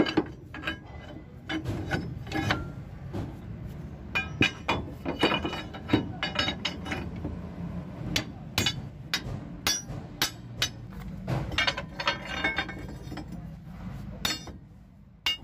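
Hammer blows on a Hino truck's leaf-spring pack and U-bolts, a run of sharp, irregular metallic strikes several a second with short pauses, as the spring assembly is knocked into place during suspension repair.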